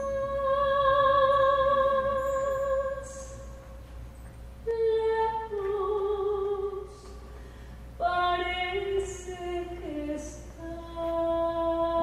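Woman singing a slow pasillo into a microphone: long held notes with vibrato in several phrases, separated by short pauses.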